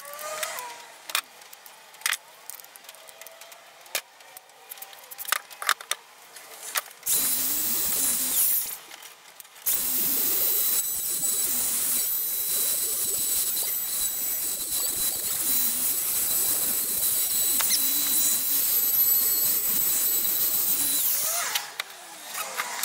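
Compact trim router routing a recess into a wood slab: it starts about seven seconds in, runs for about a second and a half, stops, then runs steadily for about twelve seconds with a high steady whine over its cutting noise before winding down. Light tapping and handling sounds come before it starts.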